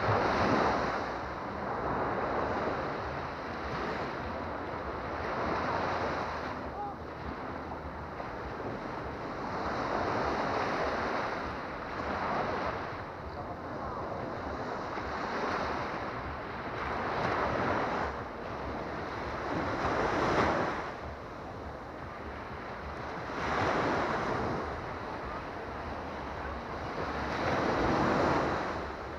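Baltic Sea surf: small waves breaking and washing up a sandy beach, surging every few seconds, with wind rumbling on the microphone.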